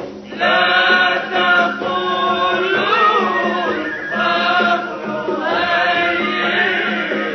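Arabic devotional song (tamjid) being sung in long, ornamented phrases, with a short break just after the start and another near the end.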